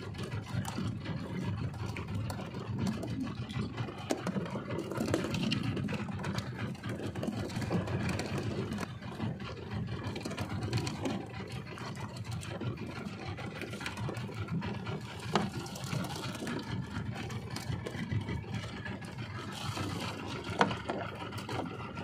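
Outboard motor running steadily at trolling speed on a small fishing boat, with a few light knocks from handling gear on board.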